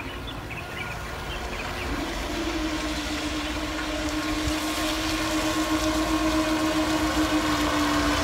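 Small remote-controlled net-laying boat running back across the water, its motor a steady whine that comes in about two seconds in and grows gradually louder as the boat approaches.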